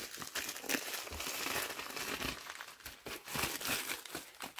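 Packaging crinkling and rustling as a parcel is handled and opened by hand, an irregular run of crackles.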